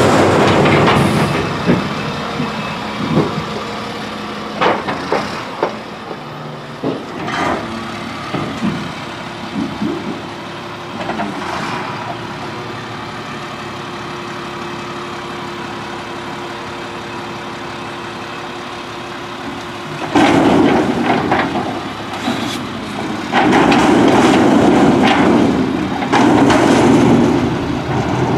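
1999 Crane Carrier garbage truck with an Impac CSL side-loader body: its engine runs steadily while the automated side arm works a container, with a string of knocks and clanks in the first dozen seconds. About twenty seconds in the engine speeds up and gets much louder as the hydraulic arm lifts the container up over the body.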